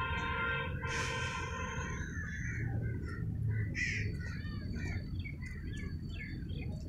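Crows cawing over and over in short overlapping calls, over a low background rumble. At the start a distant horn holds one note for about two seconds.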